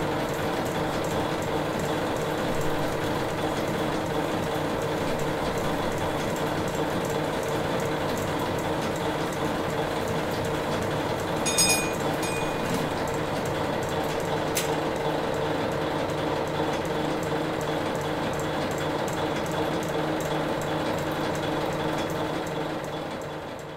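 Vertical steam engine running steadily: an even mechanical sound from its rods and valve gear with a steady hum underneath. A brief cluster of sharp clicks comes about halfway through and a single click a few seconds later, and the sound fades out near the end.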